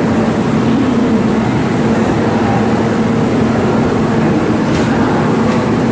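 Kintetsu 2013 series electric train standing at the platform, its onboard equipment giving a steady hum over a constant hiss.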